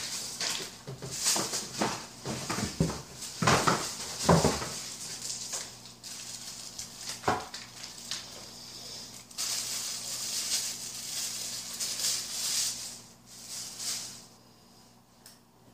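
Cardboard shipping box and packing being handled, with a run of knocks and scrapes in the first few seconds, then a plastic parts bag rustling for several seconds before the sounds die down near the end.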